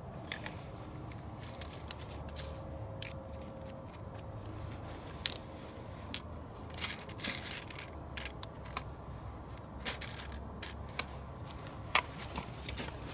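Scattered small clicks and metallic rattles of screws and tools being picked through and handled on a wooden workbench, with a few sharper knocks, no drill running.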